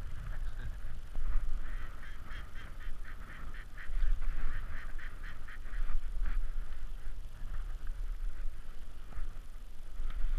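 Ducks quacking in a rapid series, about four calls a second, thinning to a few scattered quacks near the end, over a low rumble of wind on the microphone.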